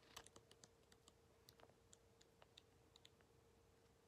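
Near silence, with faint, irregular clicks and page sounds from the paper pages of a K-pop album photobook being flipped through by hand.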